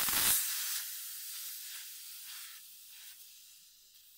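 High-pressure air hissing out as the 300-bar fill hose of a PCP air rifle compressor is bled down at the fill coupling. The hiss is loud at first and fades steadily as the pressure in the line drops.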